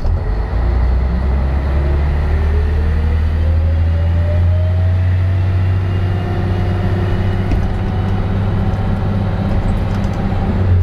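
Inside a 1996 Scania L113 bus, the rear-mounted diesel engine drones steadily as the bus drives along. Over the first several seconds a whine rises in pitch as the bus accelerates.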